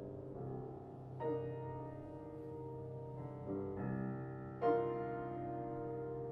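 Solo piano playing slow chords that are left to ring and fade. New chords come in about a second in, twice around three and a half seconds, and loudest near five seconds.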